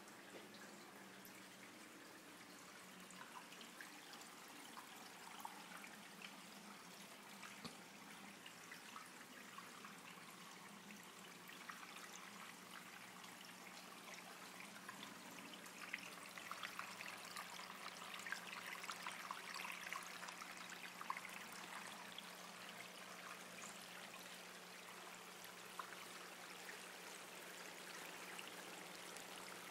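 Small indoor fountain trickling: water running down a wire-mesh column of stones into a bowl of pebbles, faint, with many small drips. It grows louder for a few seconds in the middle, over a low steady hum.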